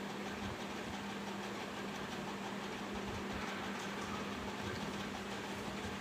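Steady mechanical drone with a constant low hum, from work going on outside.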